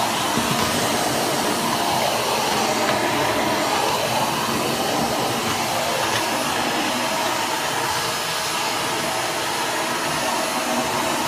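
BISSELL Zing bagless canister vacuum running steadily, sucking up crumbs and hair from a tile floor, with a constant rush of motor and air noise.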